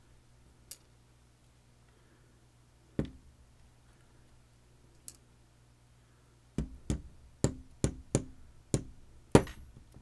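Sharp clicks and knocks of small lock parts and tools against a hard surface as a lock core is taken apart and its pins removed. A few scattered clicks come first, then a run of seven quicker taps about two-thirds of the way in.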